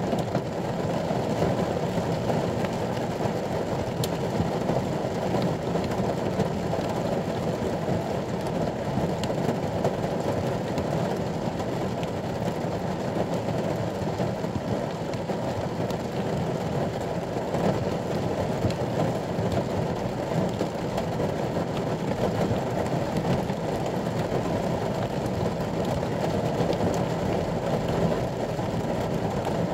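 Rain falling steadily on the roof of a ute, heard from inside the cab as a dense, even, muffled patter.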